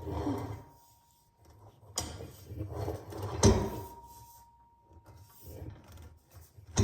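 Clothing rack parts being handled and fitted together: sharp knocks about two seconds in, again a second and a half later and once more at the very end, with scraping and rattling between them. The second knock leaves a short ringing tone.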